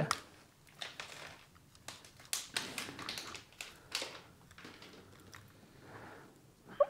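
A screwdriver undoing the small top screw of a reproduction VW Mk2 Golf boot lock held in the hand. It makes a string of quiet, irregular clicks and ticks as the bit turns and the screw works loose.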